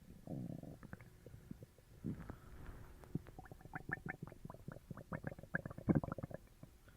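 A person's upset stomach gurgling after eating sugar-free gummies: a low growl near the start and another about two seconds in, then a quick run of small bubbling pops from about three seconds in, the strongest near the end.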